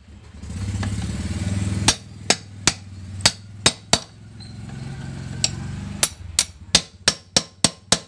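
A hammer striking a steel rod set into a drilled-out wheel lug nut, tapping around the nut to free it from a wheel stud whose threads are stripped: sharp metallic clinks, scattered at first, then a quick run of about three a second near the end. A low engine hum rises and falls underneath.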